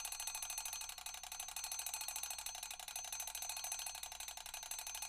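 Old-fashioned bell alarm clock ringing: its hammer beats the bell in a fast, steady, unbroken ring.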